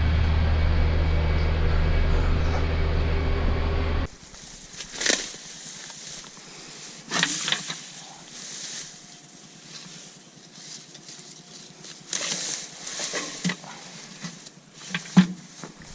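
Tractor engine running steadily under load while shredding, which cuts off abruptly about four seconds in. After that come a faint hiss and scattered sharp knocks and rustles.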